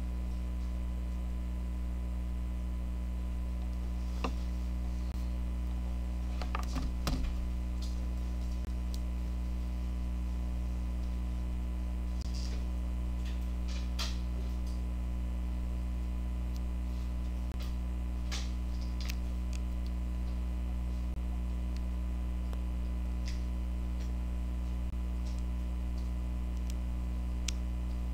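Steady low electrical mains hum, with a few faint clicks and taps scattered through it, a small cluster of them about seven seconds in.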